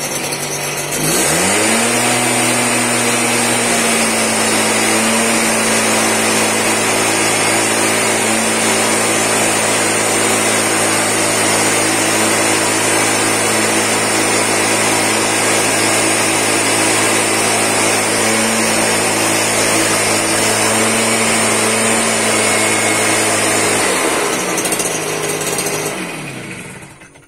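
Stihl SR 5600 backpack mist blower's two-stroke engine revving up from idle to full throttle about a second in, then running at a steady high speed with the rush of the blower air blasting out mist. Near the end the engine drops back and winds down.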